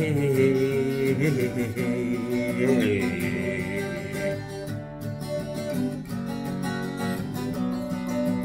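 Cutaway acoustic guitar strumming chords, with a man singing long, drawn-out "ay ay ay" notes over it through roughly the first half.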